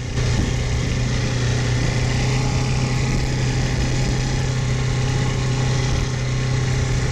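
Old Johnson outboard motor on a dinghy running at a steady speed, its note holding level, over a steady rush of wind and water.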